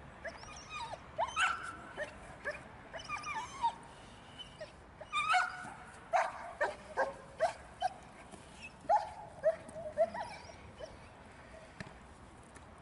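Black German Shepherd giving short, high-pitched yelping barks in quick clusters, each call falling in pitch, excited and straining toward the decoy's bite rag in protection training.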